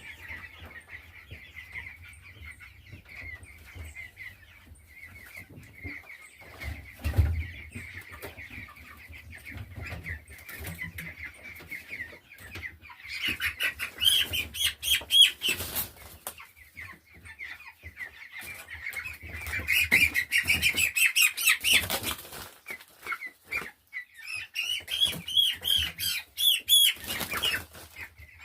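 A crowd of three-week-old chicks peeping continuously. There are three louder stretches of wing flapping and shrill cheeping, about 13, 20 and 25 seconds in, as the chicks are handled and moved, and a single low knock about 7 seconds in.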